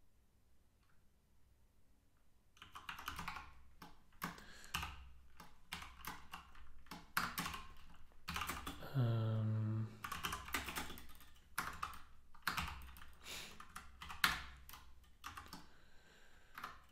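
Typing on a computer keyboard: rapid runs of keystrokes that start after about two and a half seconds of quiet and carry on in irregular bursts. A short low hum, about a second long, sounds near the middle.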